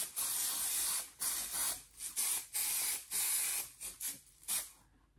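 Aerosol can of fixative spray hissing in a series of bursts of varying length, dying away shortly before the end.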